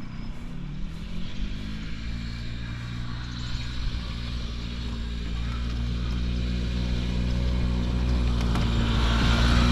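Early-1980s Par Car golf cart's two-stroke Harley-Davidson engine running under way. It revs up over the first couple of seconds, then holds a steady pitch and grows louder as the cart comes closer.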